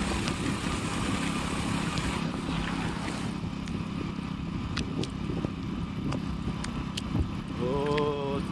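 Hero HF Deluxe motorcycle's small single-cylinder engine running steadily at riding speed, heard under wind rushing over the microphone. A few light ticks come in the second half.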